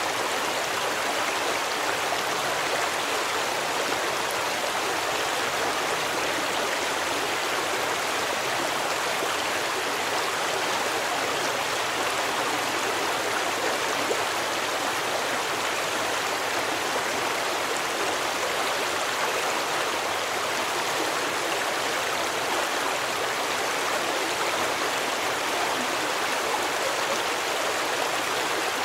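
A stream flowing, an even rush of water that does not change or break.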